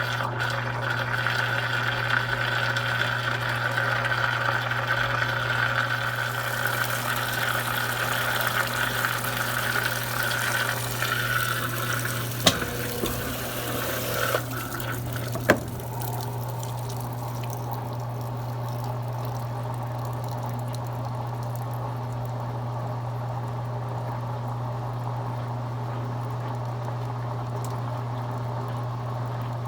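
Water running in a Consul Cargo 8 kg washing machine over a steady low hum. Past the midpoint come two sharp clicks, the water noise stops, and only the hum goes on.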